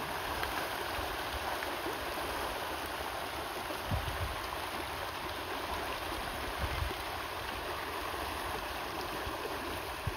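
A dense shoal of fish thrashing and splashing at the water surface as they feed, making a steady rushing wash of water. A few brief low bumps, about four seconds in, again under seven seconds in, and near the end.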